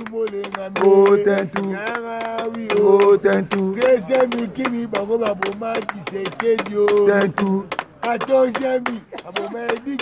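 A man singing a Lingala song in long held notes that waver in pitch, with frequent sharp clicks throughout.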